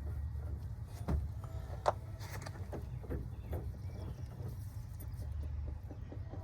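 A few light metallic clicks and knocks as a new inner tie rod is threaded by hand onto a Honda Accord's steering rack, over a steady low hum.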